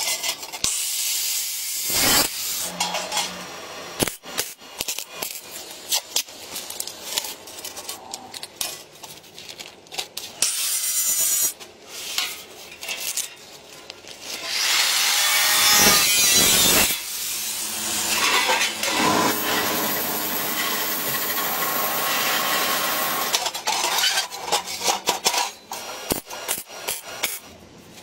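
Hand tools working material: scraping, cutting and rasping strokes broken by many sharp clicks and knocks, with a longer, louder stretch of rasping noise about halfway through.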